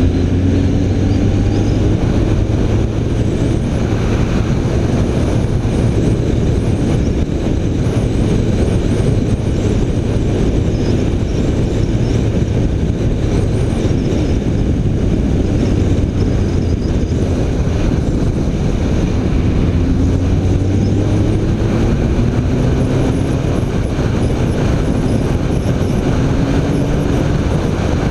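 BMW K1300 R's inline-four engine running under way, with heavy wind rush on the microphone. Its pitch rises as it pulls a couple of times, about two thirds in and near the end.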